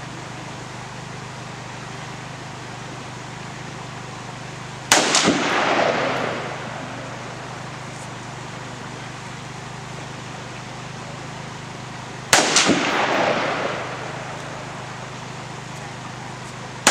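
Two rifle shots, about seven and a half seconds apart, each followed by a rolling echo across the river valley, over a steady low hum. They are misses at a Tannerite target, which stays intact until the third shot right at the end sets it off.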